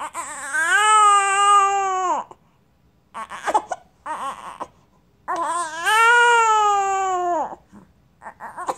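Baby crying: two long wails about three seconds apart, each rising, holding, then falling off, with short broken cries and gasps between them.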